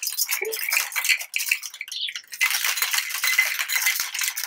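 Ice rattling hard and fast in a metal cocktail shaker, shaken to froth a whiskey sour with egg white. The rattle eases briefly about two seconds in, then carries on steadily.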